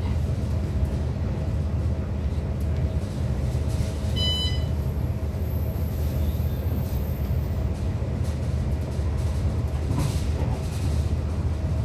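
Steady low rumble of a moving passenger train heard from inside the carriage. A short electronic beep sounds about four seconds in.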